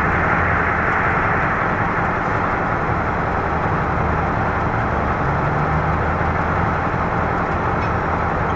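Heavy diesel mining machinery running steadily, a low, even engine drone with no breaks.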